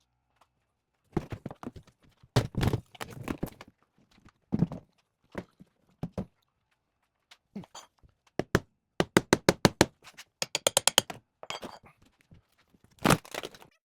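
Knocks and thuds of a wooden shipping crate being hammered and pried apart, its panels breaking free. A quick run of about eight sharp hammer strikes comes about nine seconds in, another fast run follows, and a heavy knock sounds near the end.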